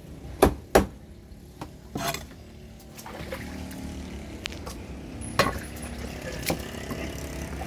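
Heavy cleaver chopping giant trevally on a wooden chopping block: two sharp blows about half a second in and another about two seconds in. After that, hands splash in a bucket of water, with a few more knocks.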